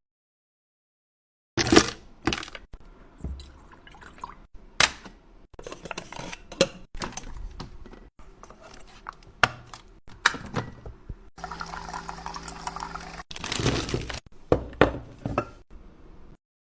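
Irregular light taps, clicks and knocks, starting after about a second and a half of silence, with a faint low hum joining about halfway through.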